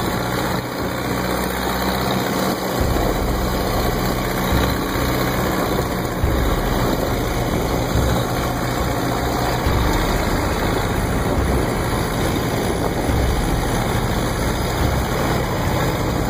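A small wooden fishing boat's engine running steadily under way, mixed with an even rush of water and spray along the hull.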